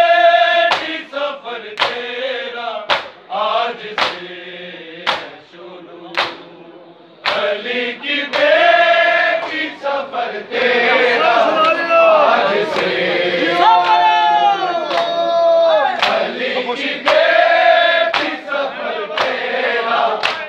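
Men chanting a Shia noha together, kept in time by a steady beat of open-hand slaps on bare chests (matam), about one strike a second. The chanting thins out around five seconds in and comes back strongly a couple of seconds later.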